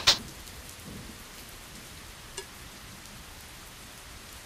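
Steady rain falling on a surface. A sharp double click of a game piece being set down sounds at the very start, and a faint tick follows about two seconds in.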